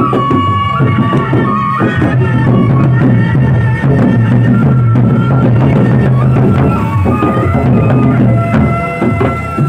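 Gendang beleq ensemble playing: the large two-headed barrel drums beaten in a busy, driving rhythm, with a high wind-instrument melody of held notes that step from pitch to pitch over a steady low hum.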